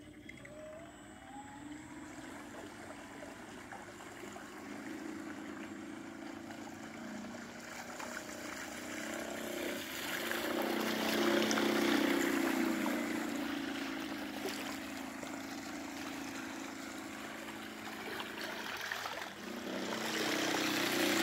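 Radio-controlled fiberglass model boat's electric motor whining steadily as the boat runs across the water, with the hull splashing and hissing through the wake. It grows louder to a peak about eleven to twelve seconds in, eases off, and swells again near the end.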